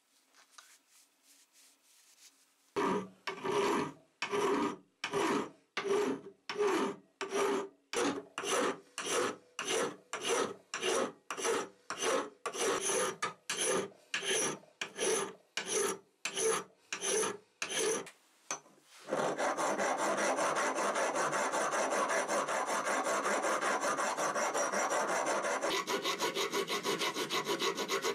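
Hand files rasping on the metal burner head of an old blowtorch. After a quiet start, even strokes of a flat file begin about three seconds in, about one and a half a second; from about two-thirds of the way in, quicker unbroken filing with a round file.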